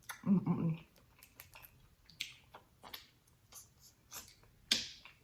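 Close-miked eating noises: wet lip smacks and clicks while chewing, with two short sucking slurps, about two seconds in and near the end. A short voiced hum comes just after the start.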